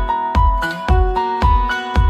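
Background music: a steady kick-drum beat, about two hits a second, under a keyboard melody.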